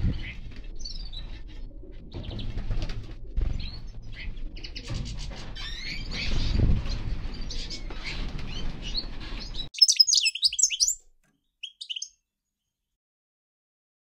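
Small finches chirping and twittering over a low background rumble. About ten seconds in the sound cuts abruptly to a brief burst of louder, sharper chirps, a second short burst, and then silence.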